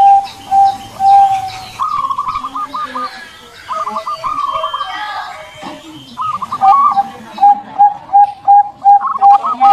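Zebra dove (perkutut) cooing. A run of short, evenly repeated coos opens the sound, quicker and slightly higher rippling notes take over for several seconds, and the steady coos return about seven seconds in. Faint high chirps of small birds sound in the background.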